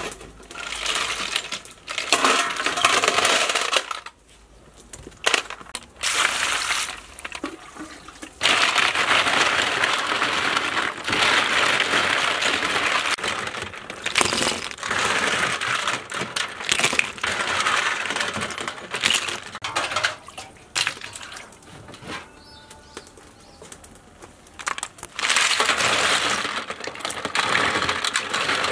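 Snails being washed by hand in a steel basin of water: shells clattering against each other and the bowl, with water splashing, in uneven bursts.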